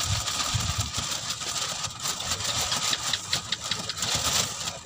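A motor running steadily at idle, with faint clicks over it.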